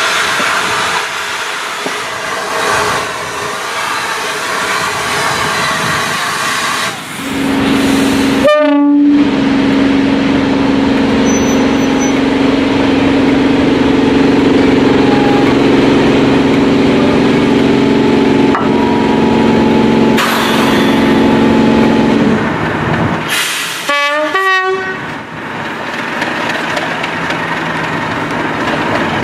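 Southern Railway Merchant Navy class steam locomotive No. 35006 working past, a steady noise. About seven seconds in this gives way to a British Rail Class 37 diesel locomotive, its English Electric V12 engine running with a steady pitched drone that fades out after about fifteen seconds.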